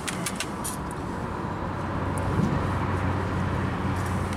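Steady low hum of a motor vehicle running nearby, swelling a little partway through, with a few light clicks in the first second.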